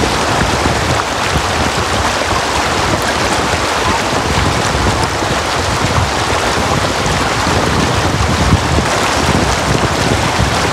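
Shallow river water rushing and splashing over stones, heard close up as a steady, even rush.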